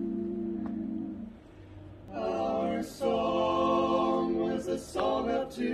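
Male vocal quartet singing a cappella in close barbershop-style harmony. A steady chord is held for just over a second, then stops. After a short pause the four voices begin the song about two seconds in, with brief breaks between phrases.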